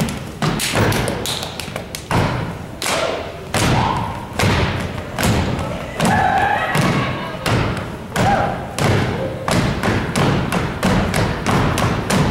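Step team stepping in unison on a wooden stage: rhythmic foot stomps and hand claps, several sharp hits a second in a syncopated pattern.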